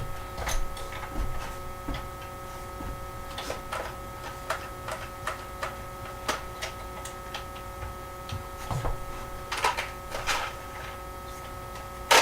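Scattered light clicks and taps over a steady electrical hum, with a few louder knocks near the end.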